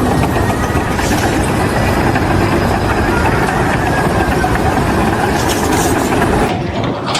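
A heavy engine running steadily, with a dense mechanical rumble. About six and a half seconds in, the sound changes abruptly and the higher hiss drops away.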